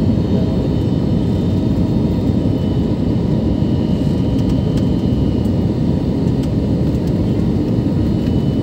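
Steady rumble of an airliner's cabin noise, engines and airflow, heard from inside the cabin as the plane lands.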